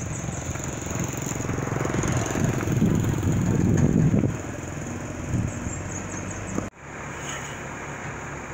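Tractor engine running steadily while it tows a sailboat on a hydraulic boat trailer, growing louder for a couple of seconds around the middle and then easing off. About two-thirds through it cuts off abruptly, leaving a quieter, even outdoor background.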